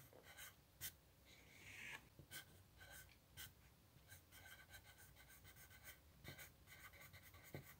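Faint scratching of a Staedtler Noris B graphite pencil on notebook paper, writing in many short, quick strokes.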